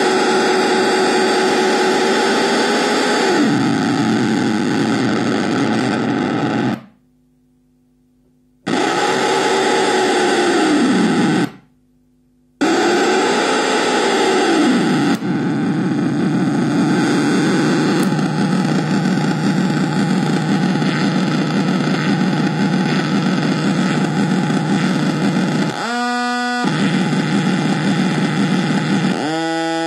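Handmade noise box built from two high-gain fuzz circuits, a crude delay and feedback loops, giving dense distorted noise. Pitched squeals in it dip and swing back up as its knobs are turned. It cuts out to silence twice for a second or two, about seven and eleven seconds in, and near the end a new tone glides upward.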